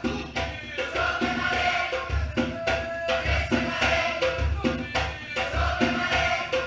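Batucada samba percussion ensemble playing, with deep bass-drum beats about once a second under busy higher drumming.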